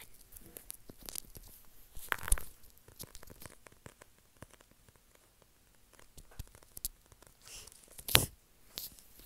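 A hardcover book handled close to an earbud microphone: scattered taps, scratches and rustles on its cover and pages, with a louder crackle about two seconds in and a sharp, loud one just past eight seconds.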